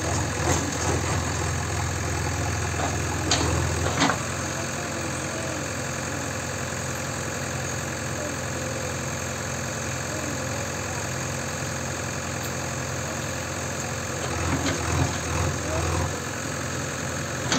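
JCB 3DX backhoe loader's diesel engine running steadily while the backhoe arm works. Two sharp knocks come about three and four seconds in, and the engine sound turns louder and rougher about fifteen seconds in.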